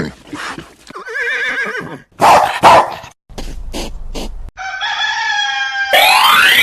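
A quick series of animal calls and cartoon sound effects: a warbling tone, a loud noisy burst, rapid ticking, then a steady pitched call like a rooster crowing, ending in a fast rising sweep.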